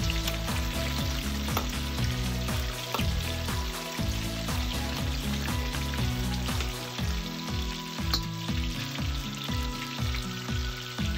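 Chicken pieces deep-frying in hot oil in a wok, a steady bubbling sizzle, stirred now and then with a metal ladle. Background music with a low, stepping bass line plays underneath.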